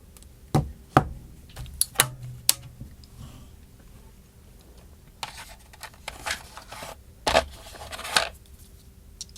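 Small tools and a phone being handled on a work surface: a run of sharp clicks and taps in the first few seconds, then scraping and rustling with one heavier knock about seven seconds in, as tiny screws are worked out of an iPhone 4S.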